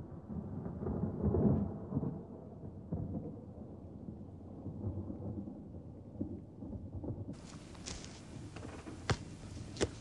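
Thunder rumbling low, swelling about a second in and then easing off. About seven seconds in the sound cuts to open-air ambience with two sharp knocks near the end.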